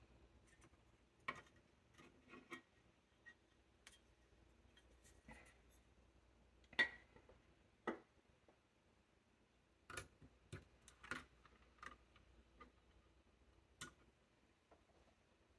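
Scattered light clicks and taps of hands handling the metal and plastic parts of a tiny desktop PC during disassembly, with near silence between them. The sharpest click comes about seven seconds in.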